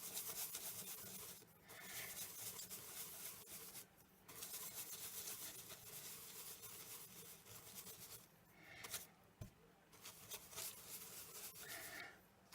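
Faint, scratchy rubbing of an ink blending brush working ink onto cardstock over white heat embossing, in several long passes with short pauses between them.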